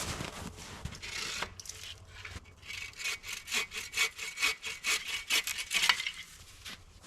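Hand saw cutting through wood: a few uneven scrapes, then about three seconds of quick, even back-and-forth strokes, roughly four a second, which stop about a second before the end.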